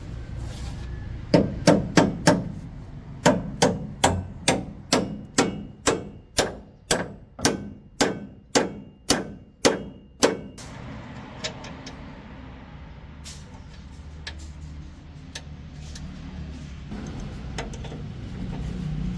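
Hammer blows on metal, about twenty of them in quick succession: a fast group of four, then a steady run of roughly two to three blows a second, with a faint metallic ring. After about ten seconds the hammering stops, leaving a low steady hum and a few faint clicks.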